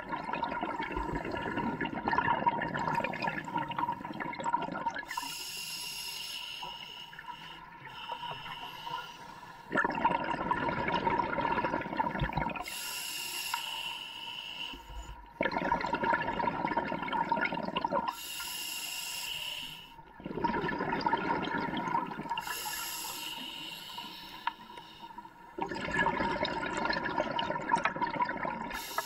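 Scuba regulator breathing underwater: a hissing inhalation through the demand valve alternating with a longer bubbling rush of exhaled air, a breath every five or six seconds.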